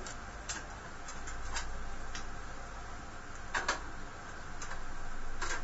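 Screwdriver working out the screws that hold a computer case's metal motherboard panel: scattered small metallic clicks and ticks, about six at uneven intervals, over a steady low hum.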